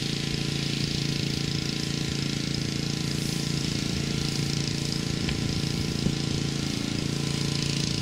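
Steady mechanical hum of a motor or engine running at constant speed.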